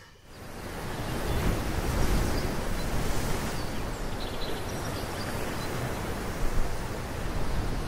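Steady rushing of ocean surf, fading in over about the first second and a half and then holding even.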